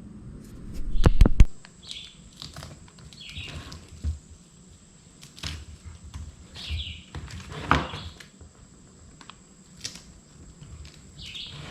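A loud low thump about a second in, then scattered knocks and clicks of something being handled. Short bird chirps repeat every few seconds in the background.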